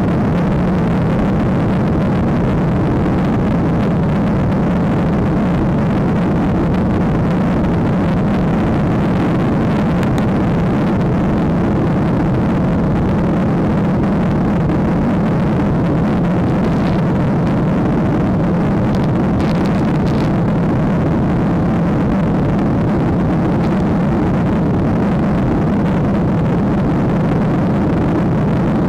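Steady engine and airflow noise heard inside a jet airliner's cabin in flight after takeoff: a constant loud rush with a low hum underneath.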